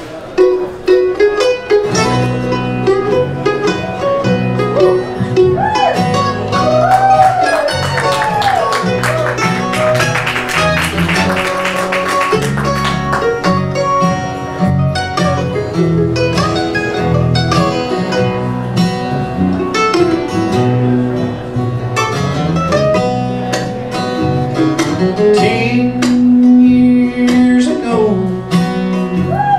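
Bluegrass band playing an instrumental intro: guitar and other plucked strings, joined about two seconds in by a steady bass rhythm, with sliding, bending notes over the top. The opening is meant to sound like a mandolin being tuned.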